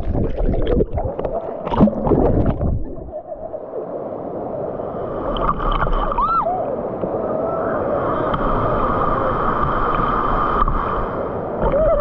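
Water splashing and sloshing for about the first three seconds, then a steady rush of water with gurgling and wavering sounds.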